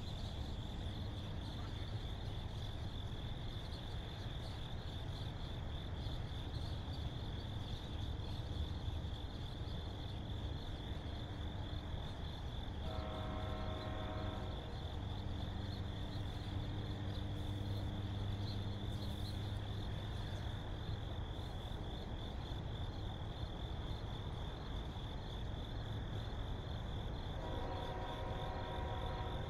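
Steady chorus of crickets trilling over a low rumble. A distant train horn sounds a chord for about two seconds about halfway through, and again near the end.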